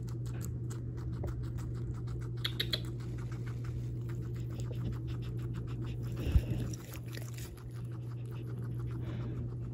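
Guinea pig munching leafy greens: a rapid run of small crunchy chewing clicks, several a second, over a steady low hum, with one sharp thump about six seconds in.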